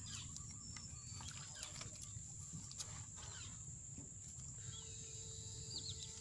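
Faint outdoor ambience: a low rumble and a steady high-pitched whine, with a few light clicks and, after about four and a half seconds, several short bird chirps.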